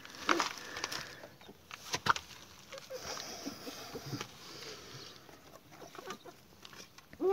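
Rustling and a few sharp knocks and clicks as a hand gathers chicken eggs from a nest of straw among stones. A hen clucks briefly at the very end.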